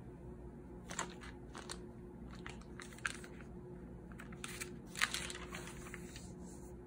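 A page of a spiral-bound paper notebook being turned: a run of crinkly paper rustles over several seconds, loudest about five seconds in.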